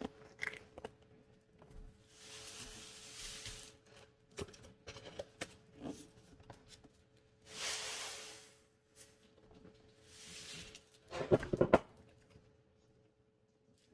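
Washing soda powder being scooped and poured with a measuring cup: three hissing pours a few seconds apart, with scattered clicks and knocks and a louder clatter near the end.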